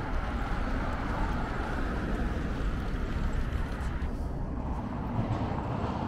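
Steady outdoor city background noise: a continuous low rumble with a fainter hiss above it, with no single distinct event standing out.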